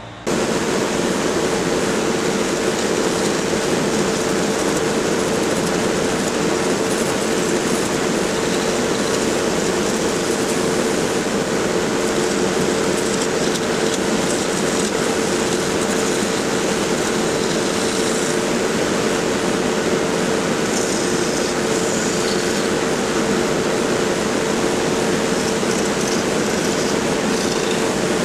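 A shop machine running steadily and loudly: a constant motor hum under a dense rushing noise, starting and stopping abruptly.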